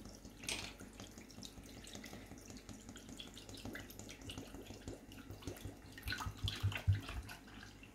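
Milk pouring from a plastic bottle into yogurt in a plastic bowl, a faint trickling and glugging that gets a little louder about six seconds in.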